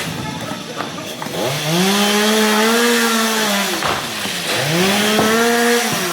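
Stihl MS 382 two-stroke chainsaw revved up to high speed twice, each time held for about two seconds before dropping back to idle.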